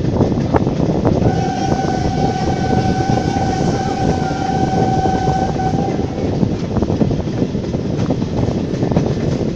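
Steam locomotive whistle giving one long blast of about five seconds on a single steady note, starting about a second in. Underneath, the steady running noise of the train with the click of wheels over rail joints.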